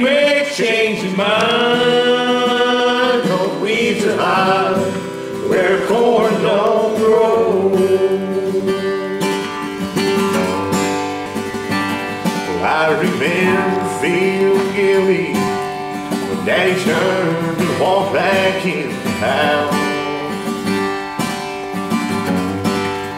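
Country music with guitar and a melodic lead line.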